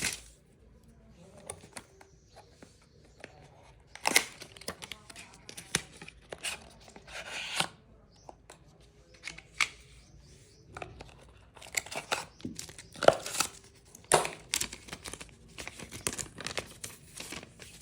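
The cardboard box and paper packing of an Apple 20W USB-C power adapter being opened and emptied by hand: tearing and rustling of cardboard and paper, with scattered sharp clicks and taps.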